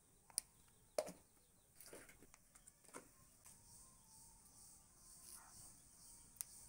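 Faint, scattered clicks and taps of a small spoon against a glass bowl as ground spices are added, over a steady faint hiss. Two sharp clicks within the first second or so are the loudest.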